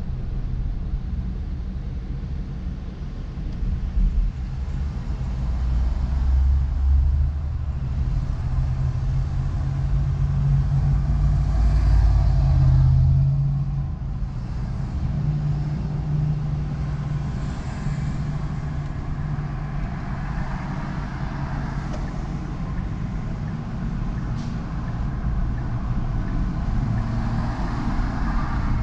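A car driving on city streets: steady engine and road rumble, growing louder a little before the middle, with a few swells of traffic noise rising and falling.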